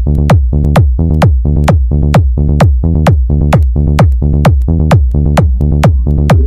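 Bass-heavy electronic dance music: a deep kick drum falls in pitch on each beat, a little over two beats a second, over sustained sub-bass notes. A rising sweep begins near the end.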